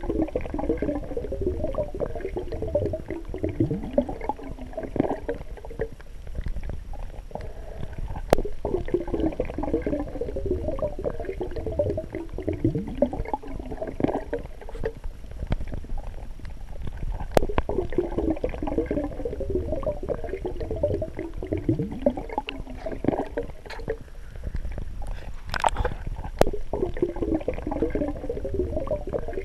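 Water gurgling and sloshing, swelling in a slow repeating cycle about every four to five seconds, with a few sharp clicks.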